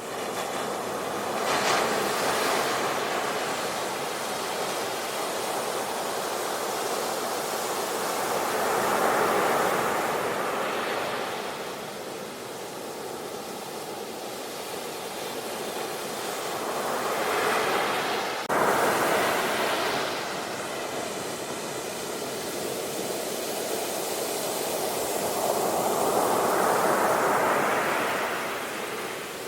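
Sea waves breaking and washing up the shore, the rush swelling and falling back in slow surges roughly every eight seconds. A sharp click with a sudden jump in level comes about two-thirds of the way through.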